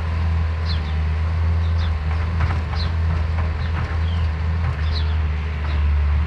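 A vehicle engine running at a steady low drone, likely from snow plowing, with short, high, falling chirps recurring above it every half second to a second.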